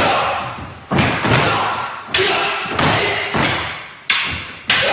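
Wooden practice weapons striking each other in a fast kata exchange, about eight sharp clacks. Each clack rings on in a large hall.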